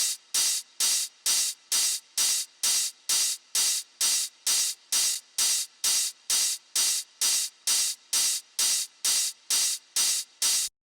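A soloed techno hi-hat loop: a bright, hissy hat hitting steadily about twice a second, every hit the same, until it stops abruptly near the end.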